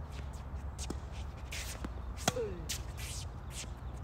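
Tennis rally on a hard court: a faint distant racket strike on the ball about a second in, then a loud close racket strike a little over two seconds in, with shoes scuffing on the court between shots.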